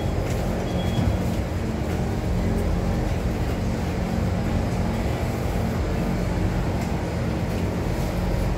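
Steady hum of a stationary Kawasaki C151 MRT train car, from its air-conditioning and onboard equipment, with station noise coming through the open doors. A brief high beep sounds about a second in.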